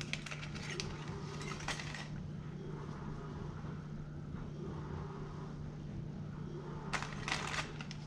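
A small plastic bag of bolts and washers being handled: plastic crinkling and small hardware shifting inside it, in the first two seconds and again near the end, over a steady low hum.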